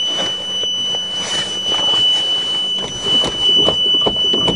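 A cold 427 V8 dump-truck engine cranking on its starter, with uneven knocks about two to three a second in the second half as it fires now and then without catching. The owner suspects it is flooded from running without a choke. A steady high-pitched whine runs throughout.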